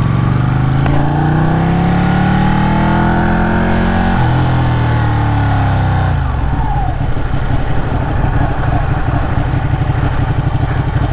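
Ducati Panigale's V-twin engine under way: it pulls up in pitch for about four seconds with a brief break partway, then falls off as the throttle closes and settles into an uneven, lumpy low-rev beat as the bike slows.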